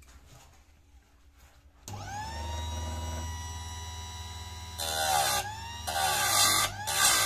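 Einhell electric saw-chain sharpener switched on about two seconds in, its motor spinning up to a steady hum. The grinding wheel is then lowered onto a chainsaw chain tooth: harsh grinding twice, with a third pass starting near the end, the motor note dipping as each cut bites.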